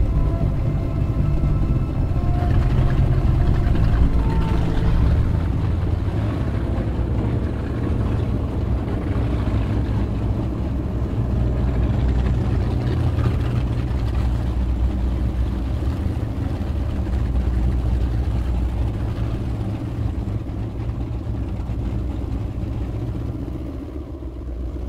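Triple Mercury engines of a Fountain 47 Lightning powerboat running steadily with a deep, even engine note.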